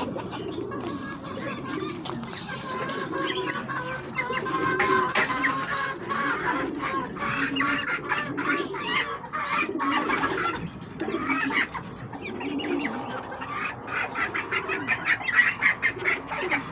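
A flock of homing pigeons and chickens crowding for bread: pigeons cooing low and chickens clucking throughout. Near the end comes a quick run of rapid strokes, like wings flapping.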